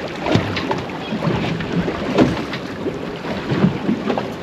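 Choppy water slapping against a drifting boat's hull, with wind on the microphone and irregular short knocks.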